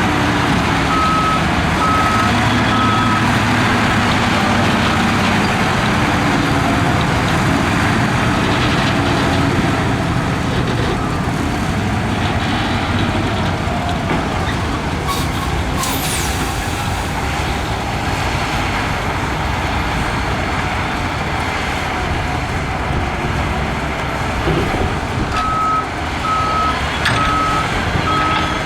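Heavy diesel earthmoving machinery (bulldozer and dump truck) running steadily under load. A reversing alarm beeps a few times on one tone near the start, and again near the end.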